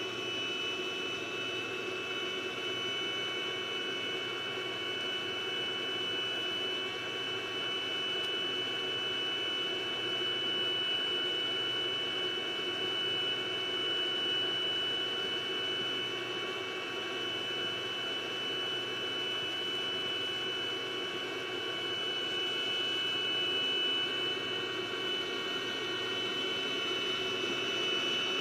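iMac G5 rev A running under load: a steady fan rush with a constant high-pitched electrical whine from its power supply, a fault of the original logic board.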